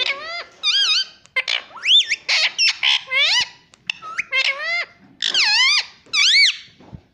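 Indian ringneck parrot chattering: a fast run of high, squeaky calls and whistles, many gliding up and down in pitch. It stops near the end.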